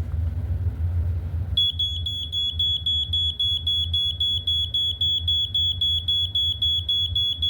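BRK 86RAC hardwired smoke alarm sounding on test: a loud, high-pitched tone with a fast, even flutter, starting about a second and a half in. Under it runs a steady low rumble.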